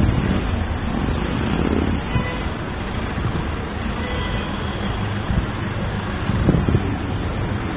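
Steady rumble of street traffic, a dense low noise without clear pitch, with a few faint high tones in the middle.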